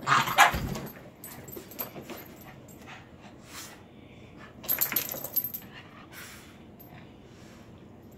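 Boston terriers scuffling with a cat: a loud burst of dog noise and scrabbling at the start and another about five seconds in, with collar tags jingling during each flurry and scattered clicks in between.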